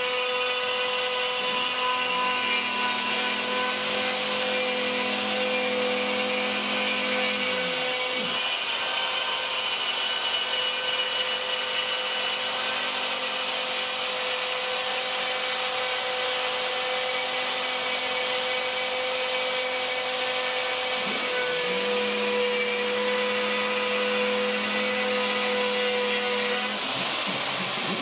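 Craftsman 2 hp router on a CNC Mogul machine running at a steady high whine while a tapered ball-nose bit cuts into a cedar fence picket. A lower motor whine starts and stops several times with short slides in pitch as the machine moves. The tone shifts near the end.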